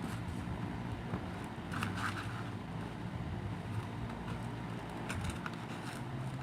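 Sheets of school paper being slipped back into a plastic folder: a few brief rustles and clicks over a steady low background hum.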